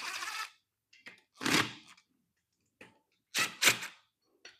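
Short clunks and scrapes of hand tools being handled on the engine: one near the start, one about a second and a half in, and two close together near the end.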